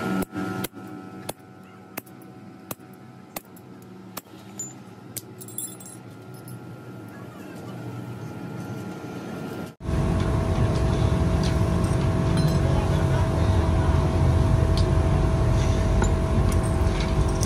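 Scattered light metal clicks and taps, then from about ten seconds in a machine running steadily, a loud even noise with a constant hum through it.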